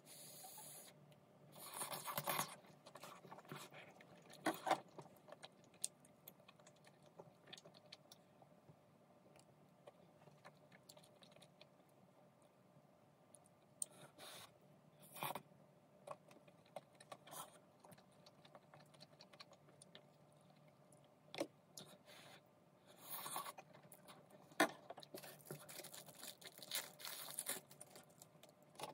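Tteokbokki being eaten with chopsticks: faint, scattered clicks and short scrapes of chopsticks against plastic bowls, with soft chewing in between.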